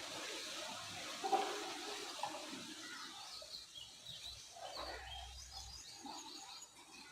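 Outdoor ambience: a steady rushing noise with a soft knock about a second in, then quick high bird chirps in the second half.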